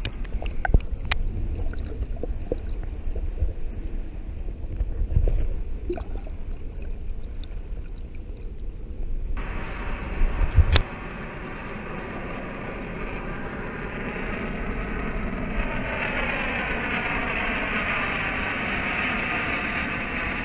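Water and wind noise on a camera riding a moving canoe: first a low, muffled rumble with scattered knocks, then, after about ten seconds, an abrupt change to a steady rushing hiss of water and wind.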